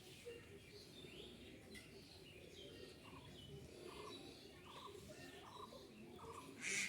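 Faint bird chirps over a low background murmur, with a short call repeating about twice a second from partway in. A louder, sharper sound begins right at the end.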